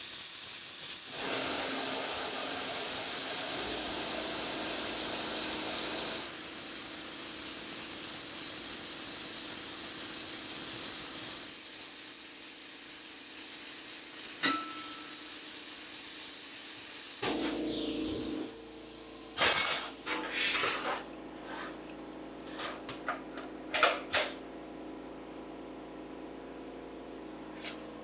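Plasma cutter hissing steadily as it cuts steel plate, then shutting off about two-thirds of the way through. After it come a series of short metallic clinks and knocks as the cut steel is handled.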